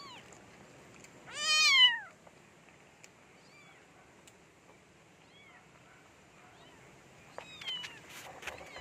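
A cat meows once, loud and falling in pitch, about a second and a half in. A few faint, short high calls follow later.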